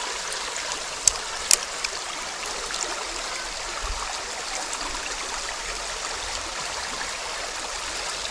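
Shallow small river running steadily over riffles, an even rushing of water. Two sharp clicks come close together about a second and a half in.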